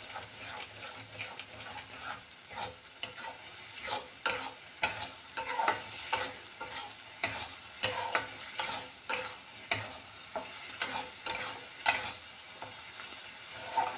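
Flat metal spatula stirring and scraping a thick masala with yogurt around a metal kadhai, with frequent irregular scrapes and knocks against the pan over a steady sizzle. The masala is frying after the yogurt goes in and is stirred without pause so the yogurt does not split.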